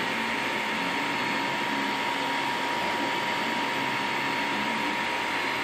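MakerGear M2 3D printer printing in PLA: its stepper motors give short tones that shift in pitch with each move of the print head and bed, over a steady high hum.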